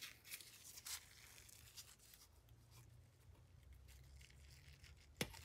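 Near silence with faint handling clicks of a hand tool working on a metal radio chassis, and one sharper click about five seconds in.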